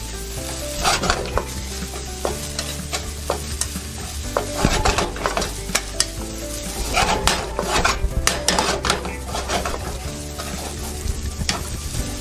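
Vegetable fried rice sizzling in a hot wok while a spatula stirs and tosses it, scraping and clacking against the wok again and again.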